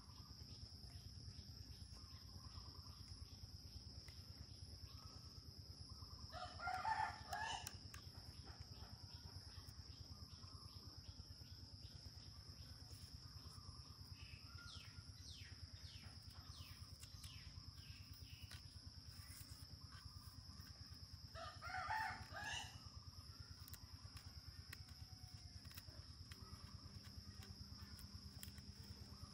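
A rooster crowing twice, about 6 seconds in and again about 21 seconds in, each crow lasting about a second and a half. Underneath runs a steady high-pitched tone and a fast, even ticking.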